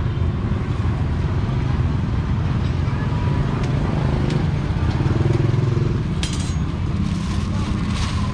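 Street traffic, mostly motorbike engines running close by, with a few sharp clatters from about six seconds in.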